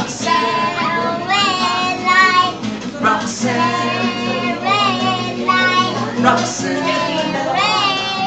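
A young boy singing a pop song in a high child's voice, with an acoustic guitar strumming chords under it.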